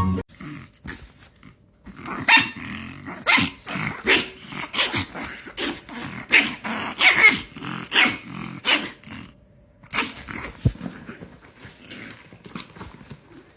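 Dog growling, with a few short barks, in a run of irregular bursts; they are loudest and most frequent in the middle and tail off near the end.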